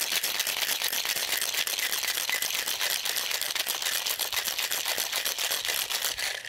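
Ice rattling hard inside a Boston shaker (a metal tin over a mixing glass) as a cocktail is shaken, a fast, continuous clatter that stops near the end.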